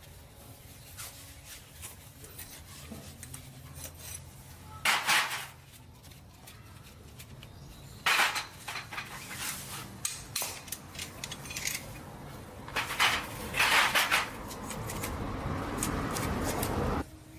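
Metal parts and hand tools clinking and clattering in several short bursts, then a steady rushing noise for about two seconds near the end that cuts off suddenly.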